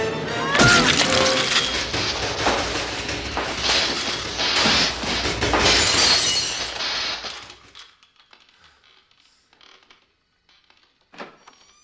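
Film soundtrack: loud dramatic music mixed with crashing, shattering sound effects, fading out about eight seconds in. Near silence follows, with one short click near the end.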